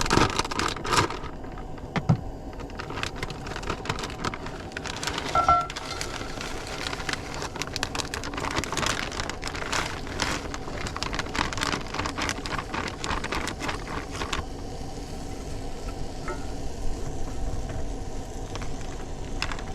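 Shrimp scampi and linguine sizzling and crackling in a pan, with a few clunks near the start. The crackling is busiest in the middle and eases off later.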